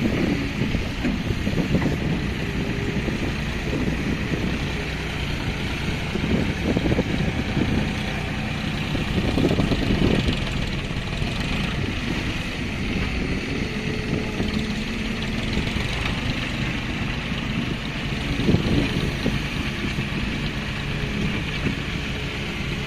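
Diesel engine of heavy earthmoving machinery running continuously, its pitch shifting up and down a little as it works.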